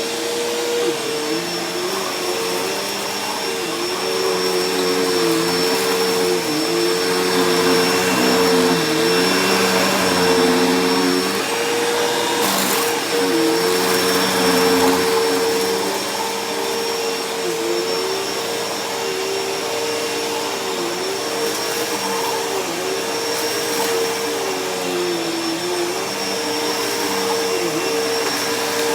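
Bissell PowerForce bagless upright vacuum running steadily over shredded paper. Its motor tone holds level while lower tones dip briefly again and again.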